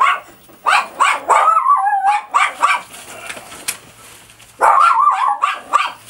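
A dog yipping and barking in two bouts of high, wavering cries, one starting just under a second in and another near the end.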